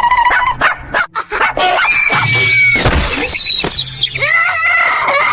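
Cartoon sound effects over background music: a character screaming, a crash about two seconds in, then wailing cries.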